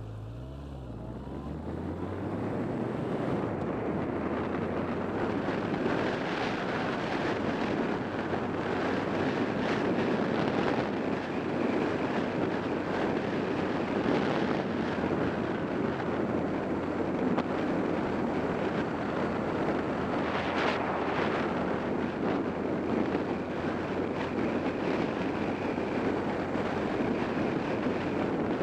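Motorcycle engine idling at a stop, then revving up as the bike pulls away in the first couple of seconds. After that, steady wind rush on the microphone covers the engine while the motorcycle cruises.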